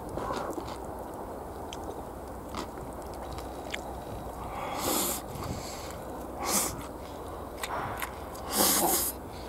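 Close-up chewing and mouth sounds of a person eating katsudon (breaded pork cutlet over rice), with small wet clicks and three louder noisy puffs in the second half, over a steady low rumble.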